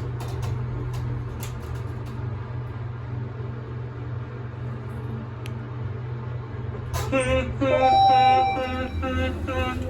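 Moving elevator car, a steady low hum with a few faint clicks. About seven seconds in, a voice starts over it, with a brief held tone.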